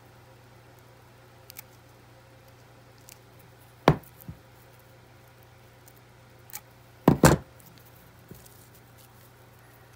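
Sharp clicks and knocks as metal snips and dried trout gills are handled: one loud knock about four seconds in and a quick double knock about seven seconds in, with a few fainter ticks, over a steady low hum.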